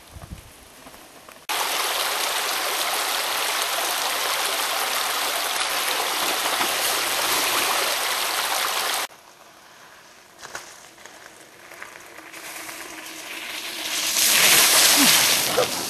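A shallow stream running over rocks, a steady rush of water that starts and cuts off abruptly after about seven seconds. After a quieter stretch, a mountain bike rolls through a puddle on a dirt track near the end, a louder splashing rush that is the loudest part.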